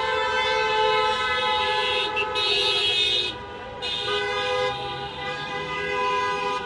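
Car horns sounding long, overlapping blasts from a stream of passing cars, several held tones at once that drop away briefly about halfway through and resume: drivers honking in support of the rally.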